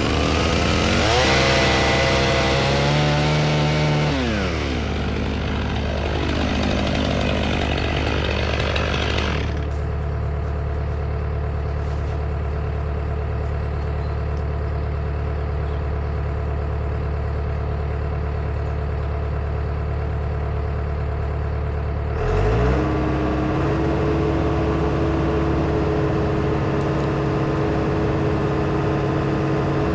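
A diesel tractor engine running steadily. In the first nine seconds a chainsaw revs up and cuts, then dies away. About 22 seconds in the engine speeds up with a rising pitch and holds at the higher speed.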